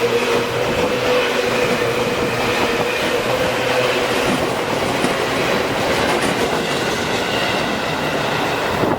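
Seibu New 2000 series electric commuter train passing close by over the level crossing, its wheels clattering steadily on the rails.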